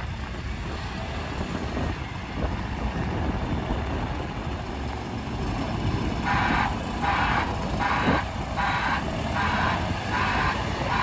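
Bell B20E articulated dump truck's diesel engine running with a steady low rumble. From about six seconds in, its reversing alarm beeps about twice a second, the sign that the truck is backing up.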